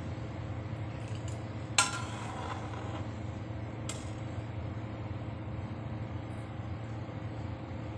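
Slotted metal spoon knocking against the side of a metal pot while meatballs are stirred in water: one ringing clink a little under two seconds in and a lighter tick at about four seconds, over a steady low hum.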